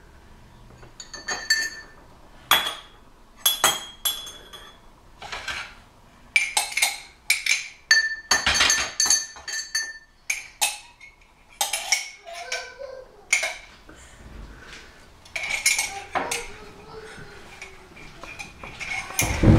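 Ceramic mugs, a glass jar, plates and a spoon clinking and knocking together as a child stirs and moves dishes around on a counter: irregular clinks, some ringing briefly.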